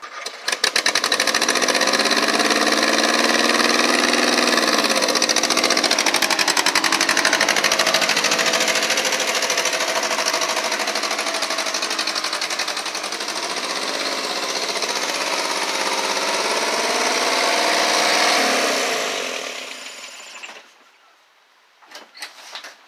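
1959 Morris Minor's four-cylinder A-series engine running with a rapid clatter, its revs rising and falling, then dying away near the end, followed by a few faint clicks.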